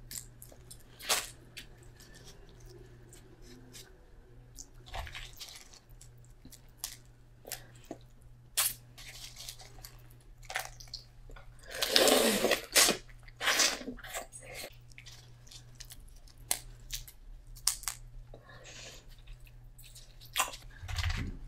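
Eating a seafood boil: scattered clicks and cracks of crawfish and crab shells being broken and picked apart, with chewing, and a louder, longer noisy sound about halfway through. A steady low hum runs underneath.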